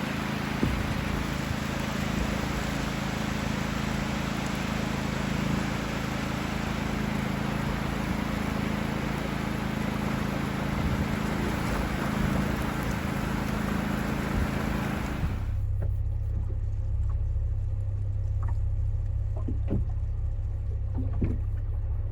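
Storm wind and rain noise over a steady low hum, cutting off abruptly about fifteen seconds in to a quieter, steady low hum with a few light knocks.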